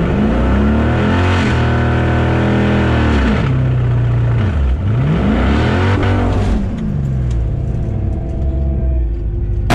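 Junkyard-sourced Gen V L83 5.3 L V8 swapped into a Mazda RX2, heard from inside the cabin, revving up and holding high for a couple of seconds. It drops, revs up once more about five seconds in, then falls back and runs steadily at a lower speed.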